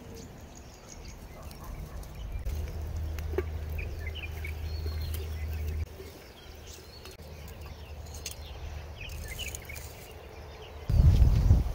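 Small birds chirping in short, high calls over the crackle of a driftwood campfire, with metal tongs clicking as the burning wood is shifted. A much louder low rumble starts near the end.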